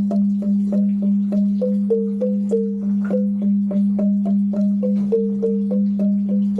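Rindik, Balinese bamboo xylophone, struck with mallets: a low note repeated about three times a second under a simple melody of higher notes that step up and down.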